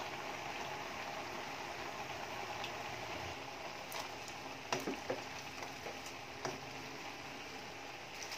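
A pan of chopped cabbage and vegetables simmering with a steady hiss. A spatula knocks and scrapes against the pan a few times from about halfway through as the cabbage is stirred.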